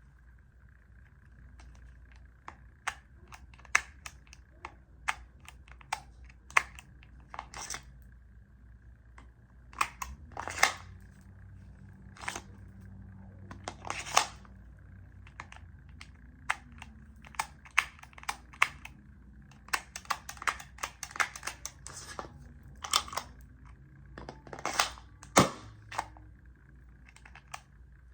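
Hudson Jericho 941 gas blowback airsoft pistol being fired: sharp shots at uneven intervals, a few louder than the rest, over a faint steady high hum.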